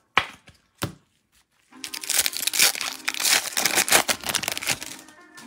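Foil wrapper of a 2024 Topps Chrome Update card pack being torn open and crinkled by hand. Two short crinkles come first, then about three seconds of continuous crackling rustle as the wrapper is ripped and pulled off the cards.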